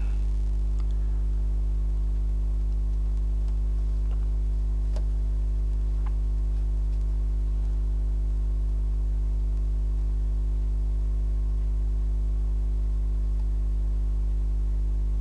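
A steady low hum with a stack of even overtones, unchanging in level and pitch, and a faint click about five seconds in.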